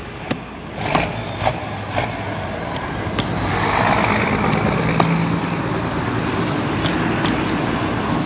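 Several sharp knocks of a hand tool striking a concrete-block mould and its sand-cement mix, over the steady hum of an engine that grows louder about three seconds in.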